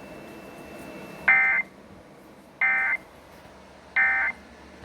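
Emergency Alert System end-of-message signal: three short buzzing bursts of SAME digital data tones, evenly spaced about a second and a third apart. They mark the end of the alert.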